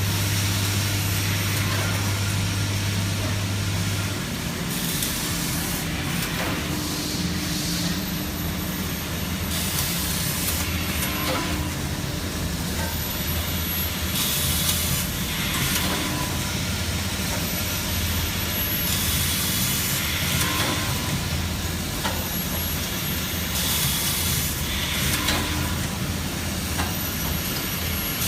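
Laser welding machine for diamond saw blades running: a steady low hum, with a hiss about a second long every few seconds.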